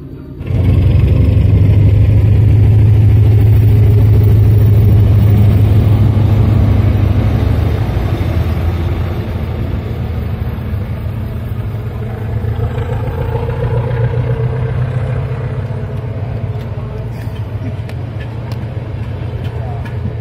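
SM42 diesel locomotive engine running hard under load as the train pulls away, a deep steady engine note. It comes in suddenly about half a second in and eases off somewhat after about seven seconds.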